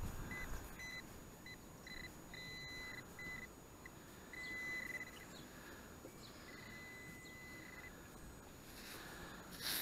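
Handheld metal-detecting pinpointer beeping at one fixed high pitch as it is probed through a dug hole in sand: a run of short, irregular beeps, then two longer steady tones midway, sounding on a metal target close to its tip.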